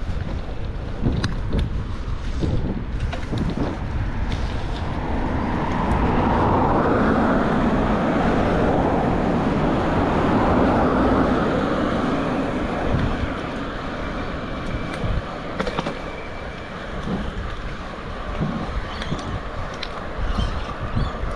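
Wind rumbling on the microphone of a moving bicycle, with a car driving past: its tyre noise swells from about six seconds in and fades away by about thirteen seconds.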